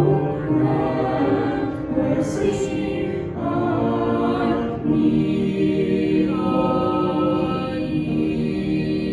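A choir singing a sacred piece, several voices holding long chords, with a brief break between phrases about five seconds in.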